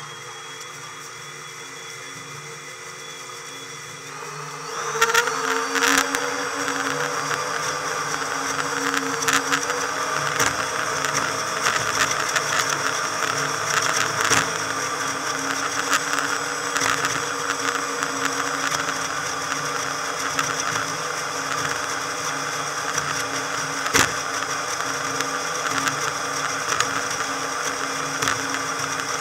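Motorboat engine, sped up four times so it sounds high and whiny: it runs quietly at first, then about four seconds in it throttles up, rising in pitch and getting louder, and runs on steadily. A few sharp knocks stand out over it.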